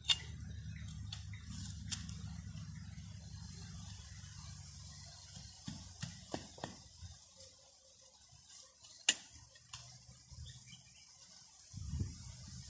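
Bamboo strips being worked by hand: scattered sharp clicks and taps, the loudest about nine seconds in. They sit over a low steady hum that fades out about halfway through.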